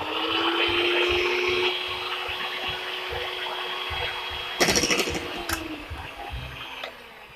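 Electric hand mixer running, its beaters whirring through thick cheese cupcake batter in a stainless steel bowl with a steady motor whine. About four and a half seconds in, the beaters clatter briefly against the steel bowl.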